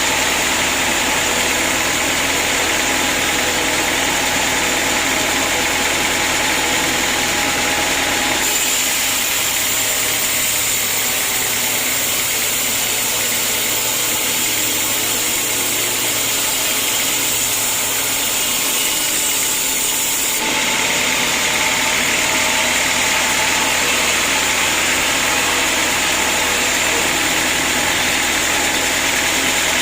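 Sawmill machinery running steadily, a loud continuous mechanical noise. About eight seconds in, the sound abruptly turns thinner and hissier with less low rumble, and it switches back about twenty seconds in.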